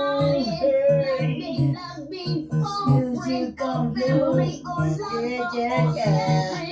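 Music: a high voice singing a gliding, ornamented melody over a steady, pulsing low beat.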